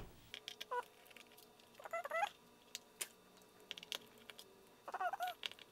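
Light clicks and ticks of a precision screwdriver and small screws on the aluminum bottom case of a MacBook Pro, scattered and irregular. Three short squeaks that bend up and down in pitch come about a second in, around two seconds in and near the end.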